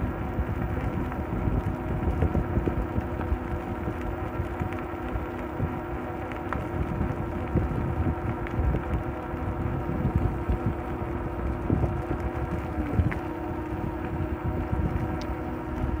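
Electric bike riding along on pedal assist: a steady whine from its motor, dipping briefly in pitch near the end, over low rumbling wind noise on the microphone.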